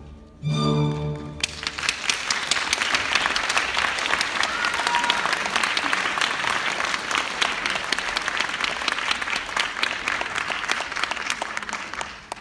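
A recorded orchestra, strings prominent, ends the variation on a held final chord, and an audience breaks into steady applause about a second and a half in. The clapping fades near the end.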